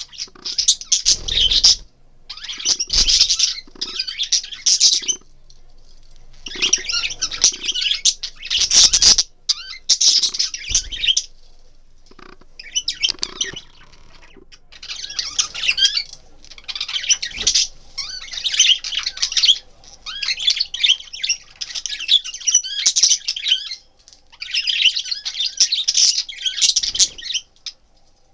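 Budgerigars squawking and chattering in harsh bursts of one to two seconds with short gaps between them, with occasional low thumps.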